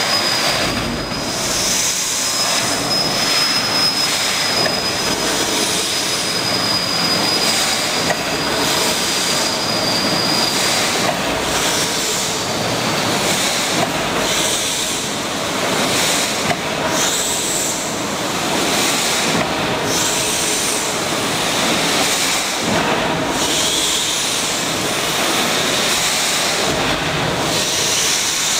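Horizontal steam winding engine of a coal-mine shaft lift running: a steady hiss of steam with mechanical clatter, and a thin high whistle over the first ten seconds or so.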